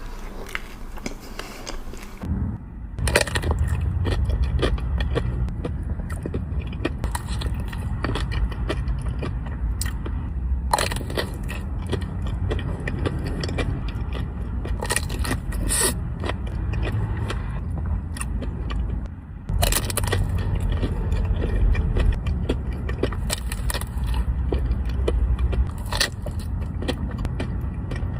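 Close-up eating sounds: bites, crunches and chewing of desserts, made up of many short clicks and crackles over a steady low rumble.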